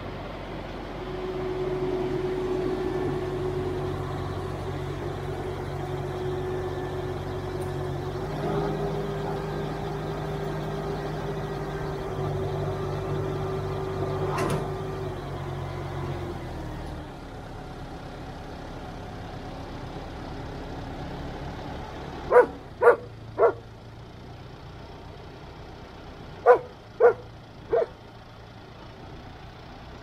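Tractor diesel engine running steadily with the Grimme potato harvester hitched, its elevator raised. About 17 s in the engine note drops to a lower, quieter idle. Later come two sets of three short, loud, sharp sounds about half a second apart.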